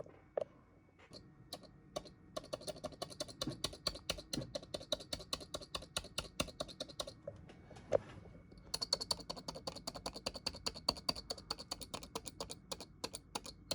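Rapid clicking of keys like typing on a keyboard: a few separate clicks, then a fast run of clicks lasting about five seconds. One louder knock comes near the eight-second mark, then another fast run of clicks.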